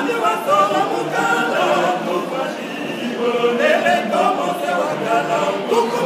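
Men's choir singing a cappella, many voices together in a continuous hymn.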